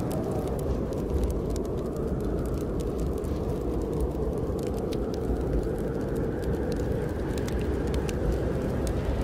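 Wood fire crackling with scattered sharp pops over the steady low roar of snowstorm wind, which swells and eases slowly.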